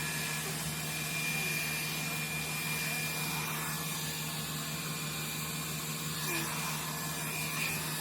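Hot air brush (a round brush with a built-in hair dryer) running steadily while drying hair: an even rush of blown air over a motor hum with a thin high whine.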